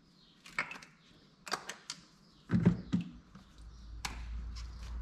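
Tools and metal parts clicking and knocking as components are unbolted and pulled off an engine, a few sharp clicks with a heavier double clunk about two and a half seconds in; a low rumble sets in after the clunk.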